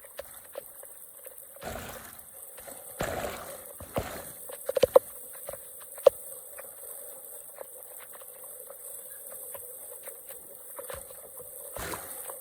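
Water trickling and splashing, with a few sharp knocks near the middle.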